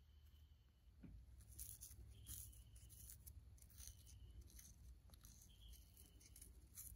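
Faint, irregular scratching of a pipe tamper pressing burning tobacco down in a briar pipe bowl.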